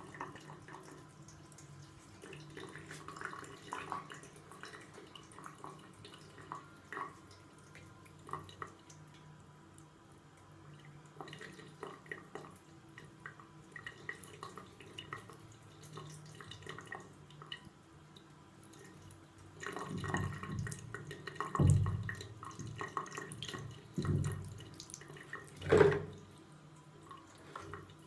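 Tap water running into a sink, with scattered drips and small splashes, and a run of louder splashes near the end as a cat plays in the water.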